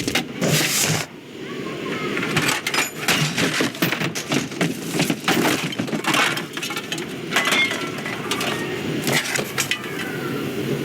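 Animated-film sound effects: a dense run of sharp clicks, clinks and knocks over a steady low murmur, with a brief lull about a second in.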